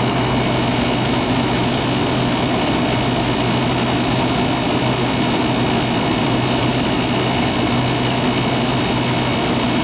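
Fedders AUP05F2K 5,400 BTU window air conditioner running steadily: the rush of its blower over a constant hum from its rotary compressor. The unit is charged and cooling properly, with a sweating return and rising power draw.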